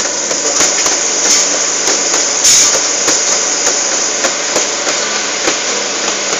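Improvised drum kit of pails and metal pans beaten by hand in a rhythm of metallic strikes, with an acoustic guitar strummed along.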